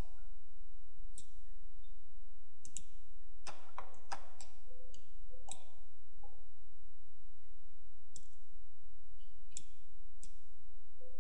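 Computer mouse and keyboard clicks, about a dozen short sharp clicks at irregular intervals, over a steady low hum.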